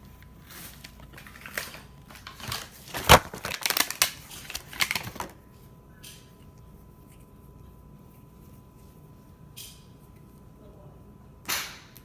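Handling noise: rustling and clicking of small objects being handled, with one sharp click about three seconds in. After about five seconds it turns quiet apart from a faint steady tone, and there is one short rustle near the end.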